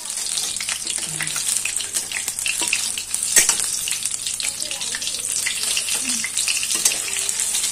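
Besan-coated stuffed green chillies (mirchi pakodas) deep-frying in oil in a steel kadhai over a lowered flame: a steady crackling sizzle, with a metal spatula clinking against the pan now and then as they are turned, loudest about three and a half seconds in.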